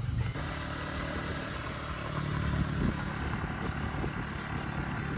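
Motorcycle engine running steadily as the bike rides along a gravel track, under a constant rushing noise.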